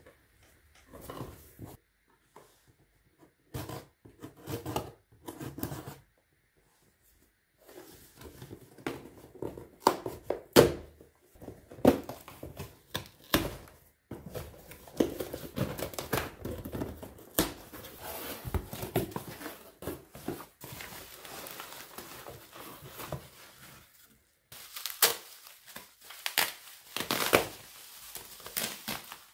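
Irregular rustling and crinkling handling sounds with scattered sharp clicks and knocks, in short bursts broken by two brief silences in the first seconds.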